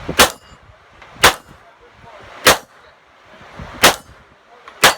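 Five shots from a Glock 17 9mm pistol firing 147-grain American Eagle ammunition, spaced about a second apart, in a timed shooting string.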